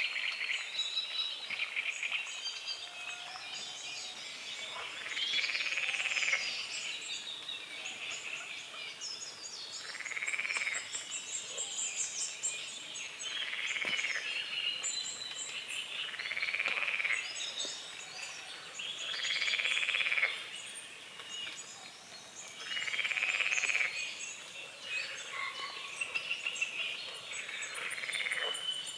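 Frogs croaking in about seven separate bursts of roughly a second each, a few seconds apart, over birds chirping and singing throughout.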